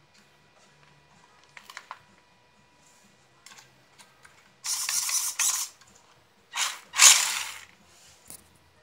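Small RC rock crawler's electric drive motor and gearbox whirring in two short bursts of about a second each as the car drives off.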